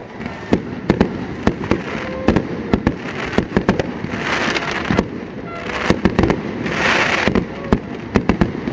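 Fireworks display: a rapid, irregular series of sharp bangs from bursting aerial shells, with two spells of crackling hiss about four and seven seconds in.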